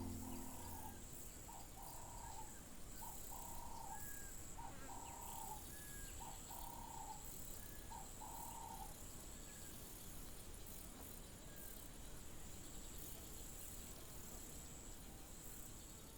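Faint outdoor ambience: a bird gives a short call about once a second, seven times over the first nine seconds, with a steady high insect trill like crickets throughout.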